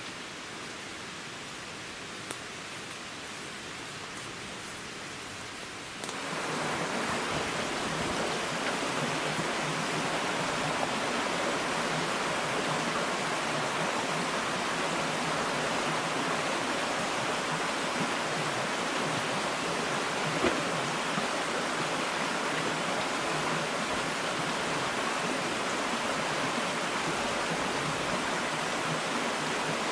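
Steady rush of running water from a woodland stream. It steps up louder about six seconds in, and a small knock or two sits on top.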